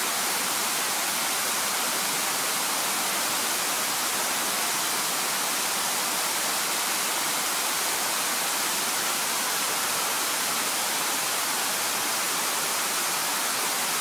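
Steady, even hiss of static-like noise, with no music or beat in it.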